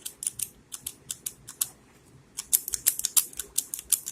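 Master Lock Speed Dial padlock's dial being pushed up, down, left and right as a combination is entered, giving a run of small sharp clicks, several a second, with a short pause about two seconds in.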